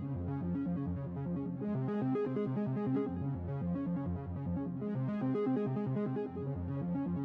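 Quiet electronic music: a synthesizer keyboard plays a melody over chords, its notes changing several times a second, with no drums.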